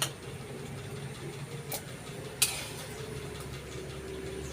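Steady low mechanical hum, with three sharp clinks of kitchenware: one at the start, a faint one in the middle, and a louder one about halfway through.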